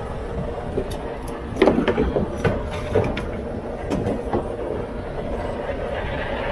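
A broom handle knocks and clanks against the metal bars of a tool rack on the back of a semi truck's cab as it is worked free, several sharp knocks between about one and a half and four and a half seconds in, the loudest first. Under it runs a steady engine rumble.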